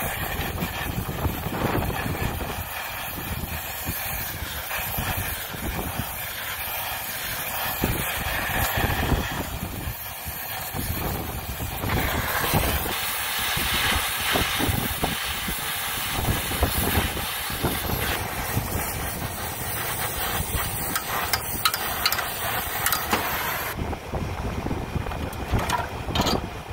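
Brazing torch flame hissing steadily as it heats a copper line on the refrigeration compressor, with gusty wind buffeting the microphone. The hiss cuts off about 24 seconds in.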